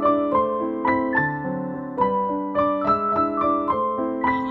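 Background instrumental music: a melody of short, evenly paced keyboard notes.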